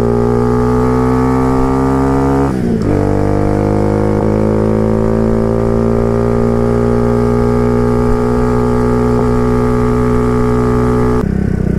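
Cleveland CycleWerks Heist motorcycle's single-cylinder engine pulling under way, its note rising steadily as the bike gathers speed, with a brief break for a gear change about two and a half seconds in.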